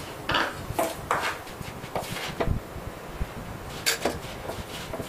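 A hand mixing roasted semolina with curd in a stainless-steel bowl: irregular rubbing and scraping of the damp grains against the bowl, with a few sharp clicks.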